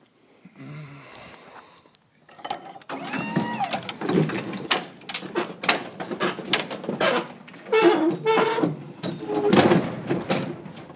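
A run of irregular metal clanks and knocks with a brief squeal about three seconds in, typical of gear being handled or a truck box door or lift being worked.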